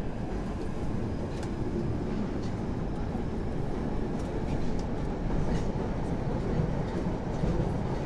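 Steady low rumble of a moving vehicle heard from inside, with a few faint ticks.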